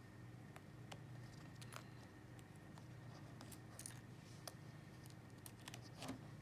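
Faint scattered clicks and light scrapes of a SIM ejector pin and a small metal SIM tray being pushed out of and drawn from the side of an iPhone. Under them is a faint steady hum.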